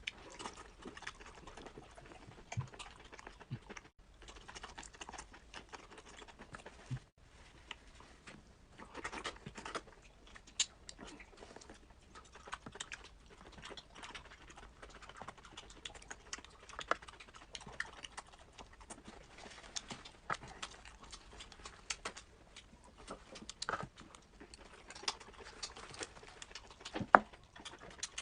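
Close-miked eating sounds: chewing and mouth noises as an irregular run of small clicks and crackles.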